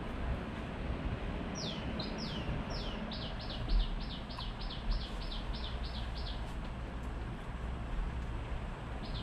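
Steady road and wind noise from a moving ride, with a run of about a dozen short, high chirps, each dropping in pitch, repeating between two and three times a second through the middle.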